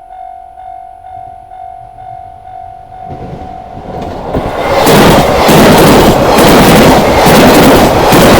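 Level-crossing alarm bell dinging about two and a half times a second, then the Suzuran No. 1 limited-express electric train rushes through the crossing at speed from about four seconds in. It is a loud, rising roar of wheels and air that drowns the bell, with its wind blast buffeting the microphone.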